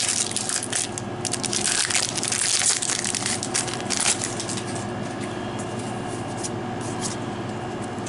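Foil Magic: The Gathering booster pack wrapper being torn open and crinkled by hand, a dense crackling for the first four seconds or so. After that it is quieter, with a few faint rustles of the cards being handled over a steady low hum.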